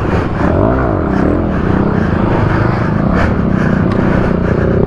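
Dirt bike engine running under way, its pitch rising and falling as the throttle is worked.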